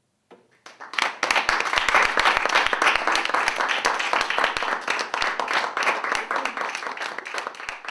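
Audience clapping in applause for a just-finished song, starting about a second in, full at once and slowly thinning out near the end.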